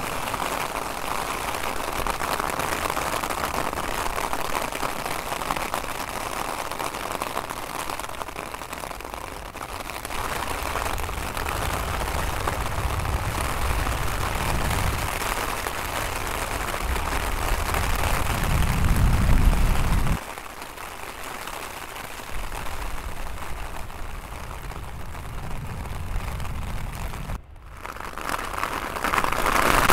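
Steady rain hiss mixed with the low rumble of jet airliners landing on a wet runway. The rumble builds to about two-thirds of the way through, then cuts off suddenly, and the sound cuts out briefly again near the end.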